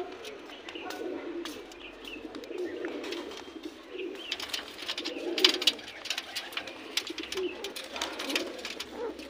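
Several caged domestic pigeons cooing over and over, with short clicks and scuffles in between.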